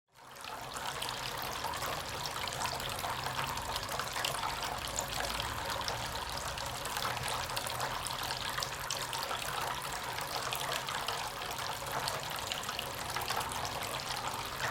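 Water trickling and splashing steadily in a small tabletop fountain, with many tiny drip-like patters.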